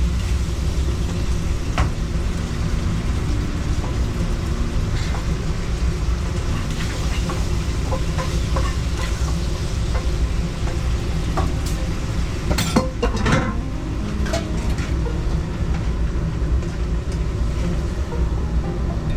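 Food-truck kitchen work: scattered clicks and clatter of utensils, with a cluster of louder knocks about two-thirds of the way through, over a steady low rumble.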